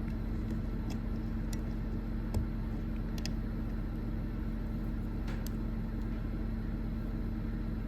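A steady low machine hum with a constant tone, with a few faint clicks and a small tap from handling small parts and connectors.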